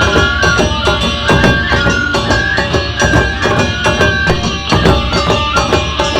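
Live Japanese folk drumming band playing: hira-daiko flat drums beat a fast, driving rhythm, with short melody notes held over them.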